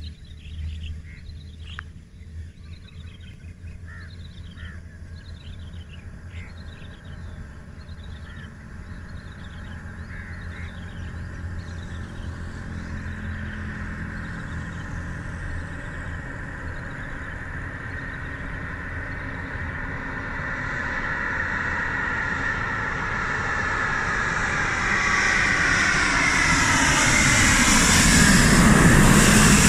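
Airbus A350-900 airliner on landing approach, its Rolls-Royce Trent XWB engines growing steadily louder as it nears and passing low overhead near the end, the engine tones sliding down in pitch as it goes by. Birds call repeatedly through the first ten seconds or so.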